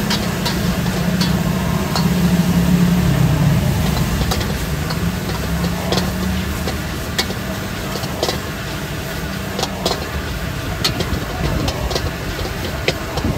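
Engine of a passing road vehicle, a low rumble that swells a second or two in and then fades to a steady traffic drone. Short sharp clinks come through it throughout.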